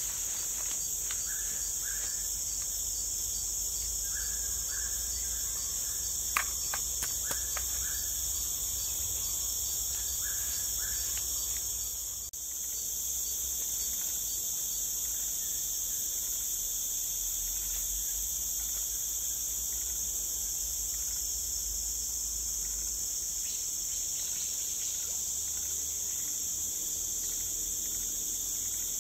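Steady high-pitched insect chorus in tropical forest, droning without a break over the low rush of the river. A few short chirps come in the first half, and a single sharp click sounds about six seconds in.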